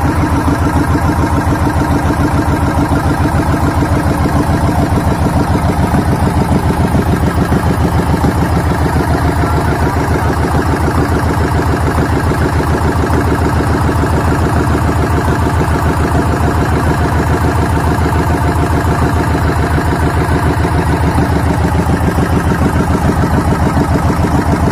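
Small fishing boat's engine running steadily at cruising speed, close by, with a rapid even chugging pulse.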